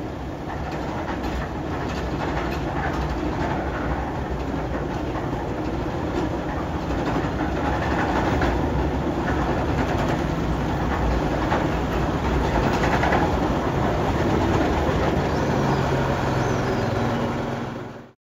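Diesel-hydraulic rack locomotive of the Snowdon Mountain Railway running on the rack track, its engine humming steadily under scattered wheel and rail clicks and clanks, growing louder, then cutting off suddenly near the end.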